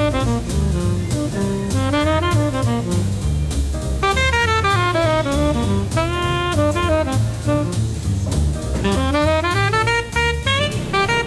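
Background jazz music: a saxophone-like lead playing runs of notes up and down over a walking bass and drum kit.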